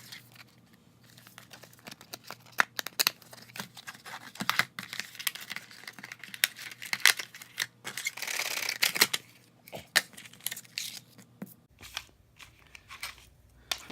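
Product packaging being opened by hand: irregular crinkling, clicks and scraping of packaging, with one longer tearing sound about eight seconds in.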